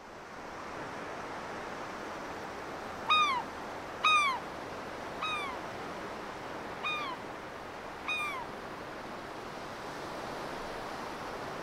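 Five short mewing animal calls, each rising slightly and then falling, about a second apart, the first two the loudest. Under them is a steady background hiss that fades in at the start.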